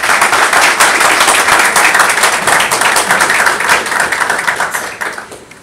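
Audience applauding: many hands clapping densely, dying away near the end.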